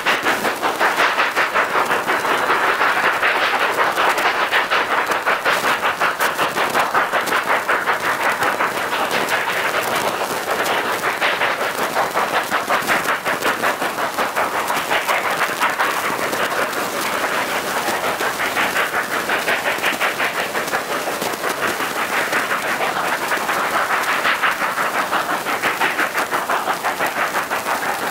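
Narrow-gauge Mikado steam locomotives' exhaust chuffing in a fast, even beat as they work up the line.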